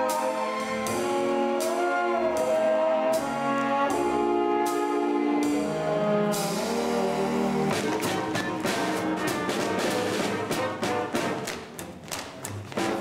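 Brass-led swing band music: slow held brass chords over a light steady beat, changing about eight seconds in to a busier, faster passage full of quick percussive clicks.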